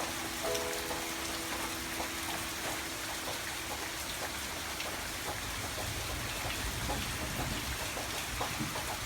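Steady rain sound with scattered drop-like ticks. A soft held musical note fades out during the first half.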